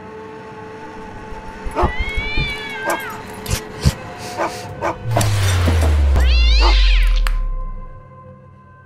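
Intro jingle sound effects over steady music: a cat meows about two seconds in and again near seven seconds, with short clicks between the meows. A loud, deep whoosh falls in pitch from about five to eight seconds.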